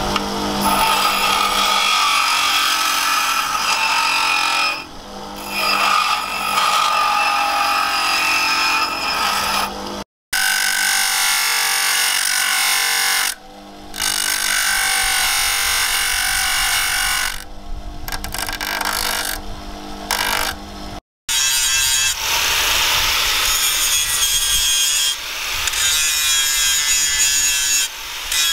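Electric bench grinders grinding a leaf-spring steel knife blank: a steady motor whine under the harsh rasp of steel on the abrasive wheel, dipping briefly when the piece is lifted off. About 21 seconds in it changes to an angle grinder with a flap disc grinding steel held in a vice.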